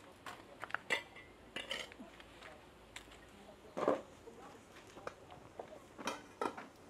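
Dishes and metal cooking utensils clinking and clattering in short, irregular knocks, some with a brief metallic ring, the loudest and duller one about four seconds in.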